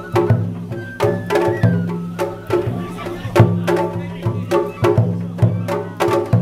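Japanese festival music (matsuri-bayashi): drums struck in a quick, steady rhythm with a melody played over them.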